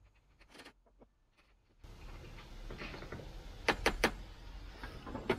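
Hand deburring tool working the cut end of a copper refrigerant line: faint scraping, then three sharp metallic clicks in quick succession about two-thirds of the way in and one more near the end. A low background rumble comes in about two seconds in.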